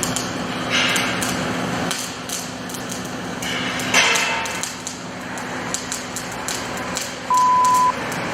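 Machine and shop noise around an automated pipe spool welding machine: a steady hum with scattered clicks and two brief hissing bursts. Near the end a short, high electronic beep sounds once, the loudest thing heard.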